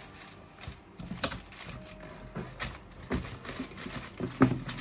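Paperboard gift boxes handled against a cardboard shipping carton: irregular taps, clicks and rubs, with one louder knock near the end.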